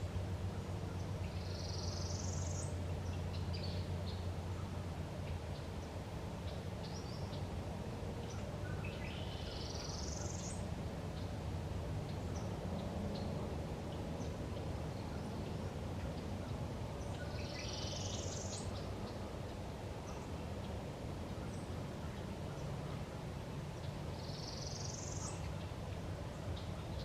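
A songbird singing the same short, high, rising phrase four times, about every eight seconds, with a few brief notes between, over a steady low background rumble.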